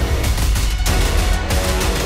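Background music with heavy bass, held chords and regular drum hits.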